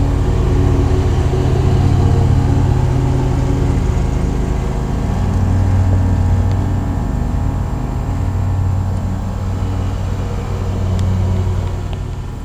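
Bryant Evolution 16 SEER two-stage heat pump's outdoor unit running in cooling mode: a steady low hum from the compressor with the whoosh of the condenser fan, easing slightly near the end.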